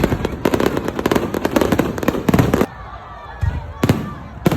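Aerial fireworks bursting in dense, rapid crackling volleys that stop about two-thirds of the way in, followed by a few separate sharp bangs.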